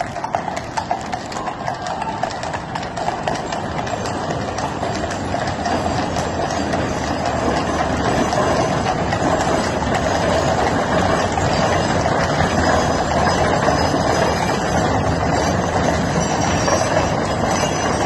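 Many horses' hooves clip-clopping on a paved road, together with the rolling rumble of horse-drawn gun carriage wheels. The rumble builds over the first several seconds as the carriages pass close by, then stays steady.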